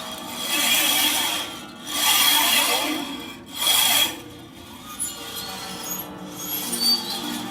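Chromaharp strings rubbed and scraped, heard as three rasping swells in the first four seconds and a quieter scraping after, over ringing string tones that glide in pitch.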